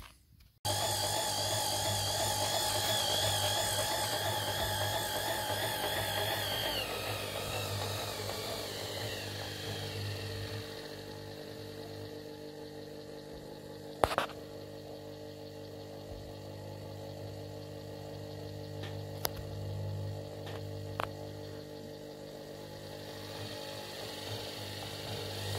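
Bridgeport-type power feed unit running on the mill's knee: its electric motor and gearbox start suddenly with a steady hum and a whine that wavers in pitch, then drops lower about seven seconds in and runs on steadily, with a sharp click about halfway through. The unit is a bit noisy, and its clutch is suspected of not always engaging properly.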